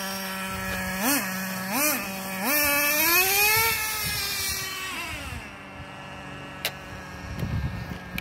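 Nitro-engined RC monster truck idling, its throttle blipped twice, then held in one longer rev that rises and falls as the truck pulls away. The engine note fades out about five and a half seconds in.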